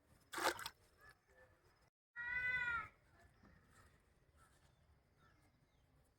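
A brief loud rustle-like burst of noise, then one drawn-out animal cry, rising and falling in pitch, a little after two seconds in.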